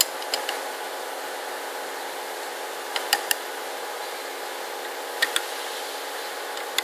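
Hex key working the socket-head cap screws that clamp the tool holder on a tool grinder: short sharp metal clicks in small groups, at the start, about three seconds in, about five seconds in and once near the end. A steady hum runs underneath.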